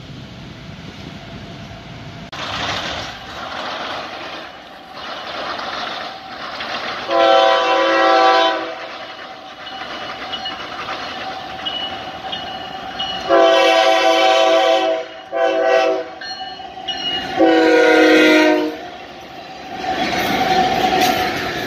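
Florida East Coast Railway diesel locomotive's multi-chime air horn sounding long, long, short, long, the standard grade-crossing signal. Train rolling noise runs underneath and swells near the end as the locomotive and loaded hopper cars pass.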